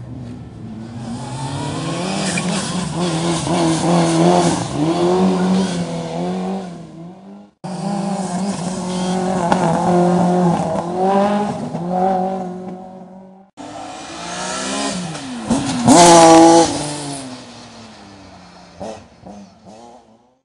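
Rally cars' engines revving hard and changing gear through three separate runs, the pitch repeatedly climbing and dropping. Late on, one car passes close by, its engine note dipping and then rising again; this is the loudest moment.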